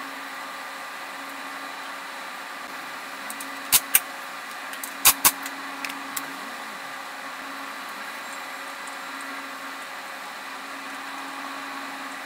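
Steady motor hum in a workshop, broken by two pairs of sharp knocks about four and five seconds in.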